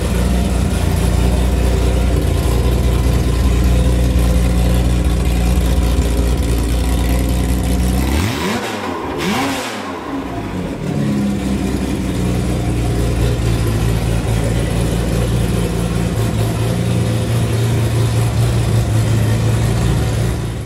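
Jaguar E-Type 3.8-litre XK twin-cam straight-six, fed by triple SU carburettors, running steadily on an engine test stand. About eight seconds in, the revs rise and fall twice in quick succession before it settles back to a steady run.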